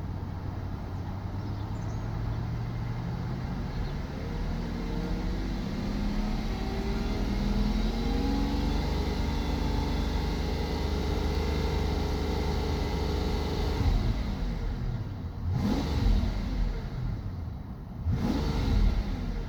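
Mercedes S600's M275 twin-turbo V12 engine, which has a misfire on cylinder 9, running and being revved. It is raised slowly and held at higher revs for several seconds, let back down, then blipped sharply twice near the end.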